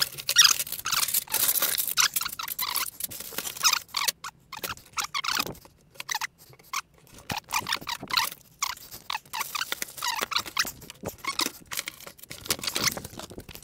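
Flat-pack metal garage shelving kit being unpacked from its cardboard box: cardboard scraping and rustling and metal shelf parts knocking as they are lifted out, in many short irregular sounds with a quieter stretch about five seconds in.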